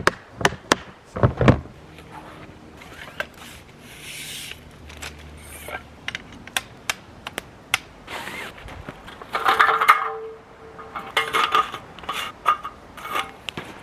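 Camp gear being handled and set down: a string of sharp clicks and knocks with rubbing and scraping, loudest in two scraping stretches about ten and eleven seconds in.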